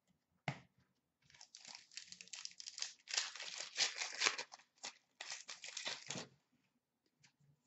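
Upper Deck Series 1 hockey card pack wrapper being torn open and crinkled: a dense crackling run of about five seconds, after a single sharp tap about half a second in.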